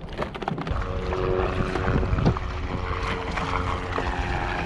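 Kayak paddle strokes splashing in choppy sea water, with wind buffeting the microphone as a heavy low rumble.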